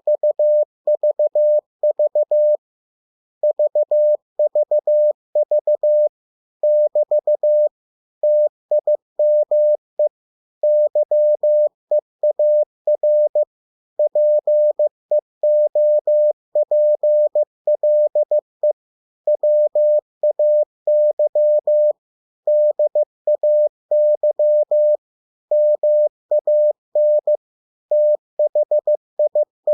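Morse code at 15 words per minute: a single steady tone keyed on and off in dots and dashes, spelling out English words, with short gaps between the words.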